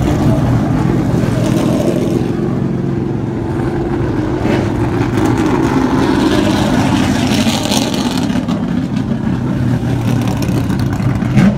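Late model race cars' V8 engines running loud and steady, a deep engine drone.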